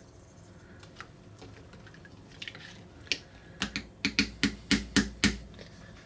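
Plastic spoon clicking against a glass bowl as powder is stirred into muddy water: a few faint ticks, then a quick run of light clicks, about six a second, in the second half.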